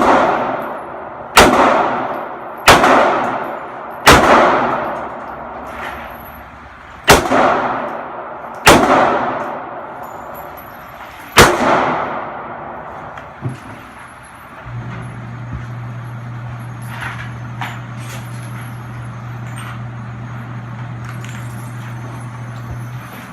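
Gunshots at a shooting range: about seven single shots one to three seconds apart, each with a ringing echo. The shots stop about halfway through, and a steady low hum follows.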